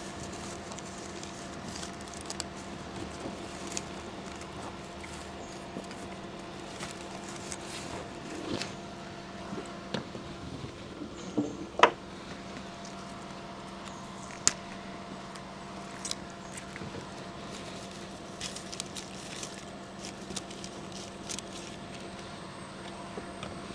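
A steady hum with scattered light clicks, taps and rustles of hands working, and a sharp click about twelve seconds in and another a couple of seconds later.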